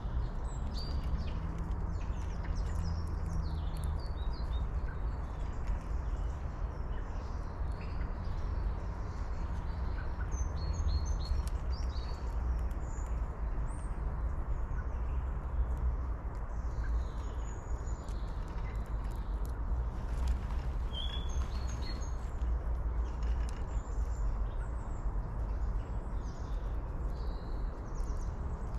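Small birds chirping and calling, many short high calls scattered throughout, over a steady low rumble.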